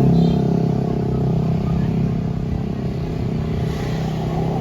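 Bus engine running steadily with a low, even sound, without a clear horn melody.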